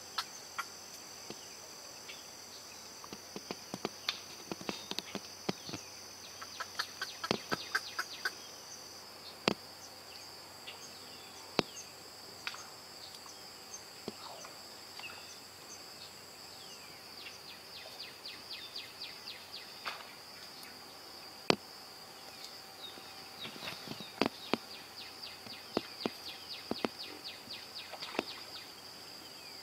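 Steady high-pitched drone of insects, with scattered sharp clicks and quick rattling runs of ticks over it; the loudest are single sharp clicks about a third and about two thirds of the way through.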